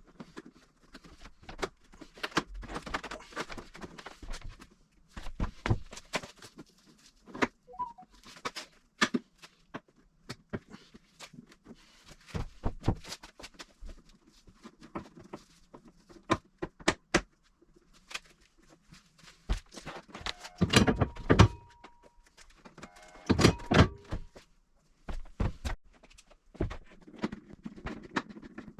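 Irregular knocks, clicks and thunks of objects being handled, with two louder clattering stretches a few seconds apart near the end, each with a brief squeak.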